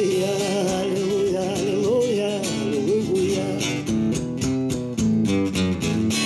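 Acoustic guitar fingerpicked, with a man's voice holding a long wavering sung line over it for about the first three seconds; after that the guitar plays on alone, picking single notes in a steady rhythm.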